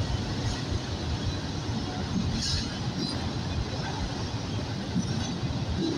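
Freight train cars rolling past, a steady rumble of steel wheels on the rails, with a faint brief high-pitched squeal about two and a half seconds in.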